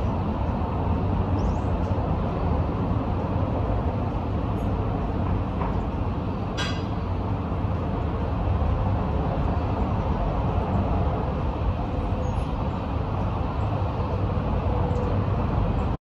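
Boosted outdoor morning ambience from a phone microphone: a steady low rumble, with a few faint bird chirps and one sharp click about six and a half seconds in.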